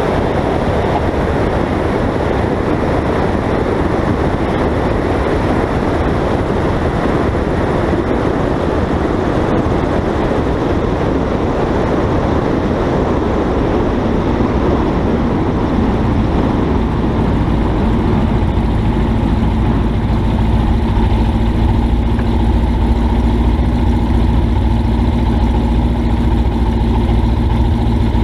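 Single-engine light aircraft's engine and propeller running steadily as it rolls along the runway. About two-thirds of the way through, a steady low engine drone comes to the fore and grows slightly louder.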